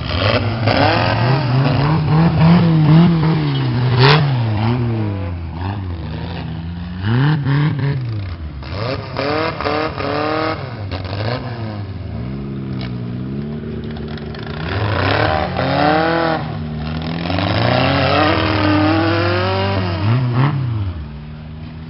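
Engine of a gaiola off-road cage buggy revving again and again, its pitch climbing and falling with each blip of the throttle, with a sharp crack about four seconds in. The revving eases off just before the end.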